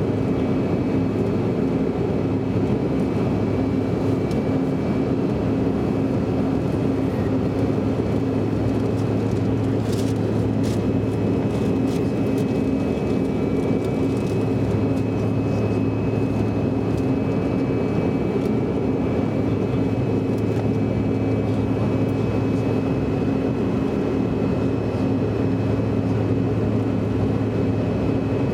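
Steady cabin noise of a CRJ regional jet in flight, heard from inside the cabin: the constant rush of its rear-mounted turbofans and airflow, with a low steady hum and a faint high whine.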